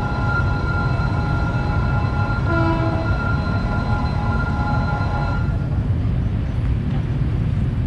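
Railway warning signal sounding a long, steady multi-tone ring that cuts off suddenly about five and a half seconds in, with a brief lower tone about two and a half seconds in, over a steady low rumble.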